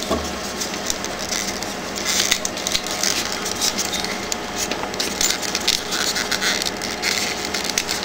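Small irregular scrapes and clicks of hands working a Peltier (thermoelectric) module loose from between two aluminium heat sinks, over a steady faint hum.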